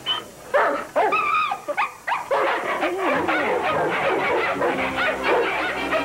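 Several dogs barking and yelping in a scuffle, with a high whine about a second in. From about halfway the barking thickens into a dense, overlapping din.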